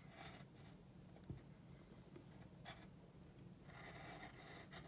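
Faint scratching of a pencil drawing on a paper workbook page, a little louder near the end.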